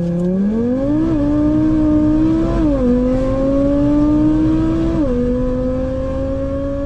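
Turbocharged 2.5-litre five-cylinder engine of a 700 hp VW Golf 7 R under full-throttle acceleration. The pitch climbs steadily through each gear and drops sharply at two upshifts, a little under three seconds and about five seconds in.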